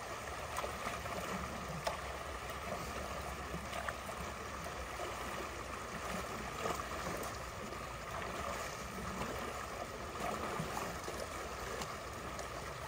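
Creek water running steadily through a partly cleared beaver dam, with a few faint clicks.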